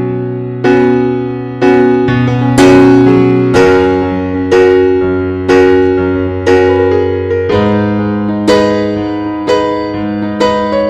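Background music: a slow piano tune, one note or chord struck about every second and fading, over held bass notes.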